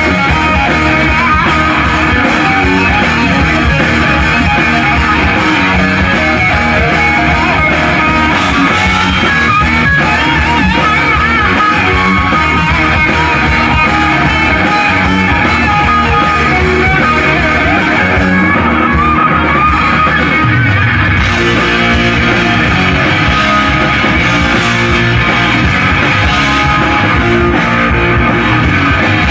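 Live hard-rock band playing loudly, led by an electric guitar solo with bent, wavering notes over bass and drums; about twenty seconds in the bass gets heavier.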